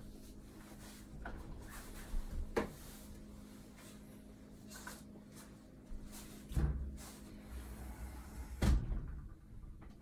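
Rubber squeegee drawn over a wet window pane, with three louder dull knocks and bumps against the glass and frame, about two and a half, six and a half and nine seconds in. A faint steady hum lies underneath.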